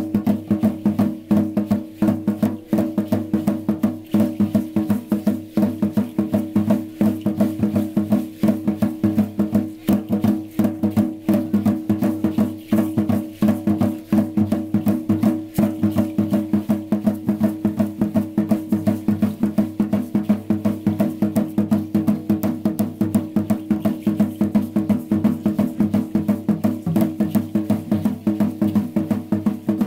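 Percussion music for Aztec-style danza: a drum beaten in a quick, even rhythm with sharp woody clicks, over a steady low ringing tone.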